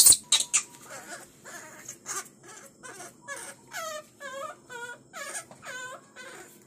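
Baby macaque crying: a loud shriek at the start, then a string of short, high-pitched whimpering cries, about two a second.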